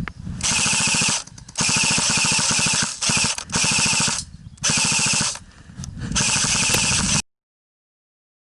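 Airsoft electric rifle firing six full-auto bursts of rapid, evenly spaced shots, each burst under about a second and starting and stopping sharply. The sound cuts off to dead silence a little after seven seconds in.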